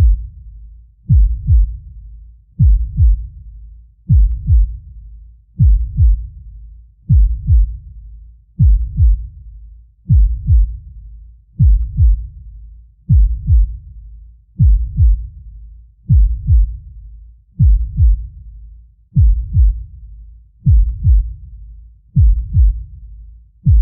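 Deep heartbeat sound effect: a slow, steady lub-dub, two low thumps close together repeating about every one and a half seconds.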